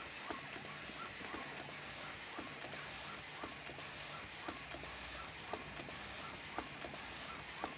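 Taylor Twin twin-cylinder steam boat engine running slowly, with a sharp knock recurring about once a second over a steady hiss. The knocking comes from bearings not yet adjusted, and the hiss is steam leaking past loose piston rod glands.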